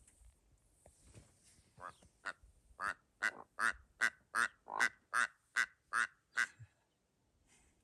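Rüppell's korhaan calling: a series of about a dozen short, harsh, frog-like croaks, two or three a second. It starts softly, grows louder, then stops.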